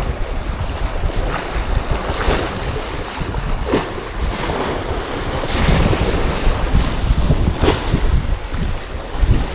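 Wind buffeting the microphone over the sea's waves, with waves splashing sharply four times.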